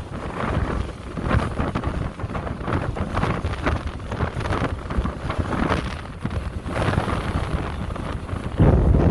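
Strong coastal wind buffeting the microphone in gusts, a heavy low rumble with a louder gust near the end.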